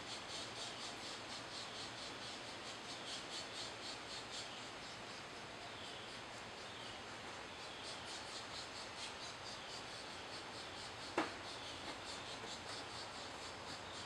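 Woodland ambience of rapid, rhythmic high-pitched chirping, with a few short falling bird calls and one sharp knock about eleven seconds in.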